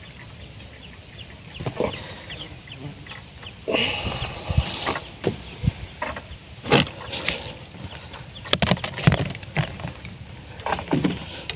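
Irregular knocks, clicks and rustling as a freshly caught fish and the fishing gear are handled on a wooden footbridge: the landing net and the sack are bumped and the fish is put away.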